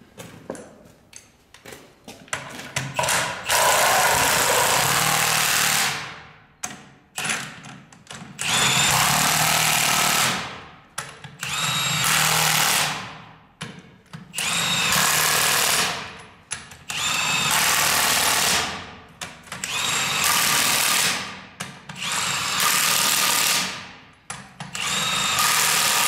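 Milwaukee M18 cordless 3/4-inch impact wrench hammering on the sprayer's wheel nuts. It comes in about eight bursts of roughly two seconds each, nut after nut, and the motor winds down after every burst.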